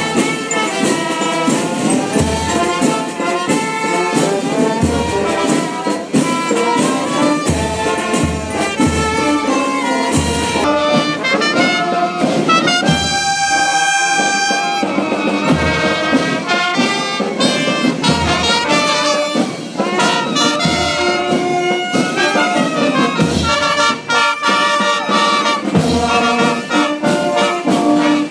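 Brass marching band playing a march: trumpets, sousaphone and saxophones over a bass-drum beat of about one thump a second, with one long held note about halfway through.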